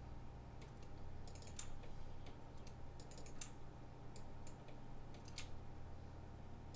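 Scattered, irregular clicks of a computer keyboard and mouse, over a steady low hum.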